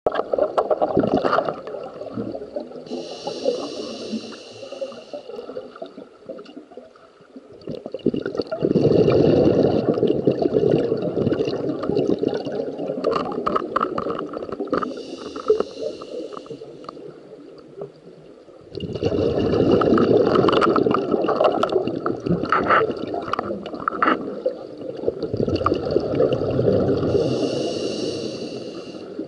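Scuba diver breathing through a regulator underwater: a short hissing inhale about every twelve seconds, each followed by a long gurgling rush of exhaled bubbles.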